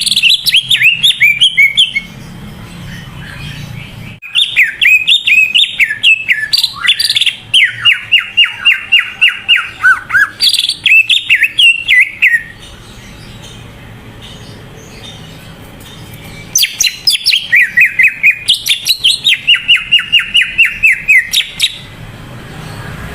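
Cucak ijo (green leafbird) singing its full 'gacor' song: rapid runs of loud, sharp chirping notes, many of them sliding downward, in three bouts separated by pauses of a few seconds.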